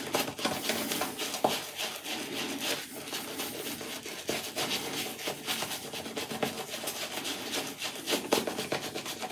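Apshave Cashmere 28mm shaving brush being scrubbed over a lathered face, re-lathering for a second shaving pass. It makes a steady rubbing rustle of bristles through the lather, with a fine crackle of rapid little ticks.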